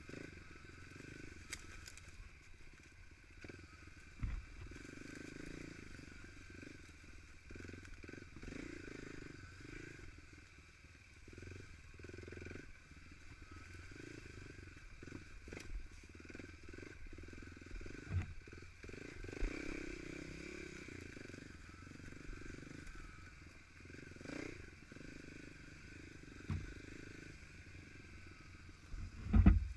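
Trail motorcycle's engine running as it rides a rough forest trail, the engine note swelling and easing with the throttle. A few sharp knocks come through, the loudest near the end.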